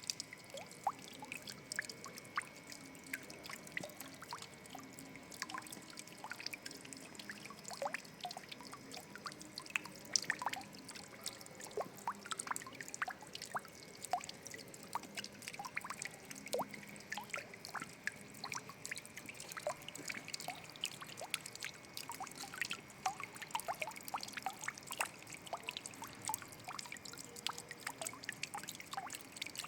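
Water trickling and dripping continuously, with many small irregular plinks and splashes over a steady flow.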